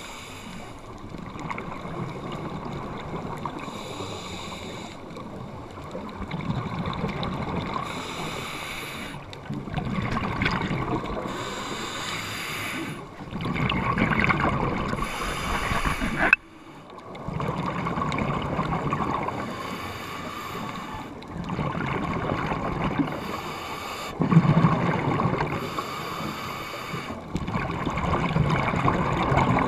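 Muffled underwater noise heard through a camera housing, with a burst of bubbling from a scuba regulator's exhaled breath about every three to four seconds.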